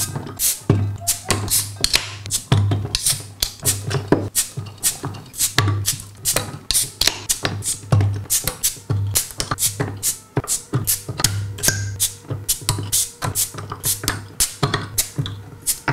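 Glass beer bottles uncapped one after another with a metal bottle opener: a fast, dense run of sharp metallic clicks and cap pops over repeated low thuds.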